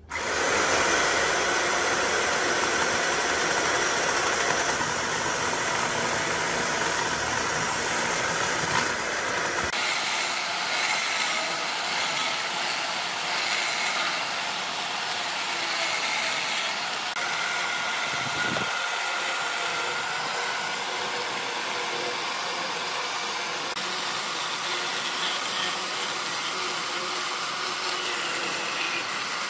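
A power tool running steadily, a whirring motor with hiss. The sound changes abruptly about ten seconds in and again near the middle, as if cut between takes.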